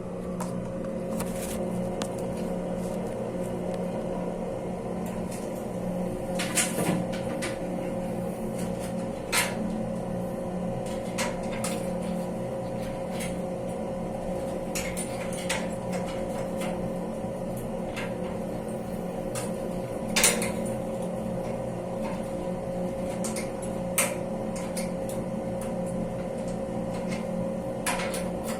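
A steady low hum with a fainter higher tone, overlaid by scattered clicks and knocks at irregular times. The sharpest knock comes about twenty seconds in.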